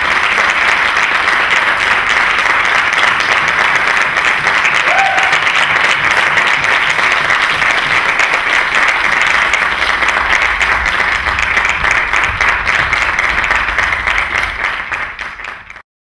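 Audience applauding steadily at the curtain call, a dense, even clapping that fades near the end and then cuts off abruptly.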